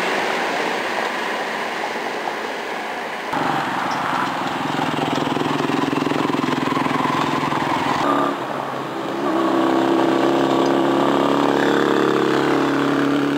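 Steady engine hum of a slow-moving motorcycle and other motor traffic, over general street noise. The sound changes abruptly about three and eight seconds in.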